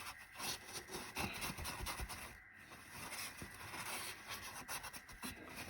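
A rag rubbing and scrubbing the fuel pump gasket surface on a Mopar 440 engine block, cleaning it with acetone. The strokes are faint and irregular, with a short lull about two and a half seconds in.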